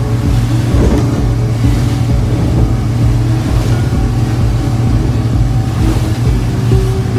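Boat engine running steadily at cruising speed, a constant low drone, with water rushing past the hull as it runs through choppy waves.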